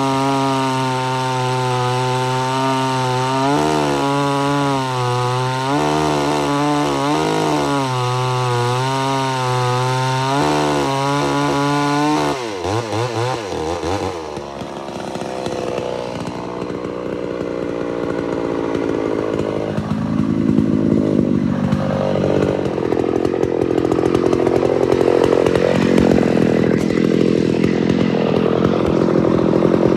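Homelite Super XL-925 82cc chainsaw, its governor blocked off, running at full throttle while cutting through a large log. The engine note holds steady with slight wavers. About twelve seconds in, the pitch drops and the sound turns rougher and noisier, growing louder toward the end.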